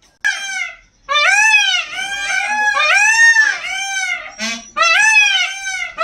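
Indian peafowl calling its breeding-season call: a quick series of short, loud calls, each rising and falling in pitch, about two a second, with a short break about a second in.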